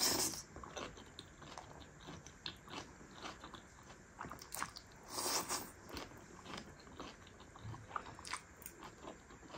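Close-miked eating sounds of a person eating black bean noodles: a slurp of noodles near the start and another about five seconds in, with wet chewing and mouth clicks between.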